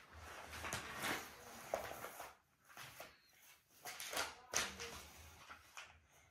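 Faint scattered rustles and soft knocks of a baby shifting about on a bedspread, in a quiet small room.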